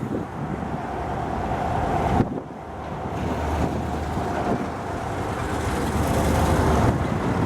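Tatra T3 tram running through the square, with a steady whine over a low rumble from wheels and track, and wind buffeting the microphone. About two seconds in, the sound changes abruptly.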